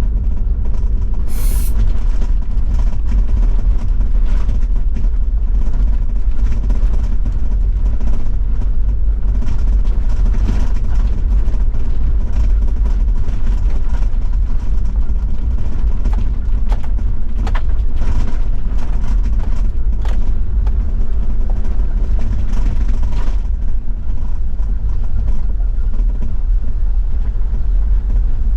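Toyota Land Cruiser 70-series diesel engine running steadily under way on an unpaved forest road, with occasional short knocks and rattles.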